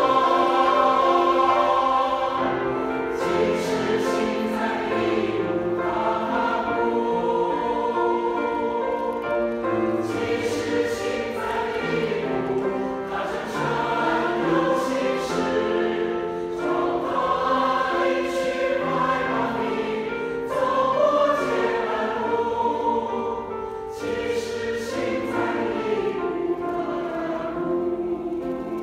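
A mixed choir of men and women singing a hymn in Chinese in held, sustained chords.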